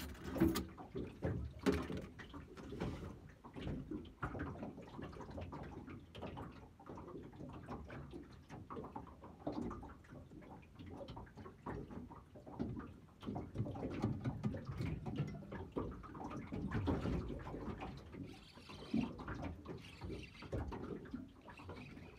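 Water slapping and sloshing against a small fishing boat's hull, an irregular run of low splashes and knocks.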